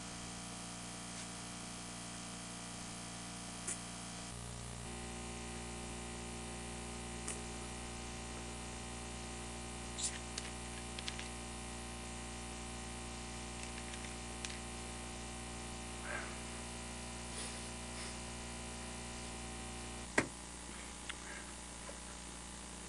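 Steady electrical mains hum of room tone, with a few faint clicks and knocks, the sharpest about twenty seconds in.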